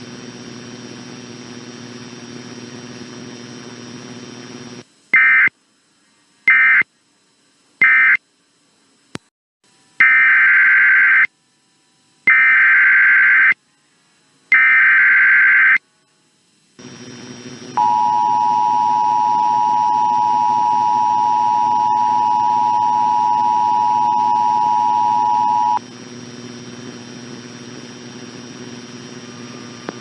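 Emergency Alert System data and tones over a steady background hum. Three short data bursts end the previous alert, then three longer screeching data bursts form the header of a new alert. An eight-second two-tone attention signal follows, a steady dual beep.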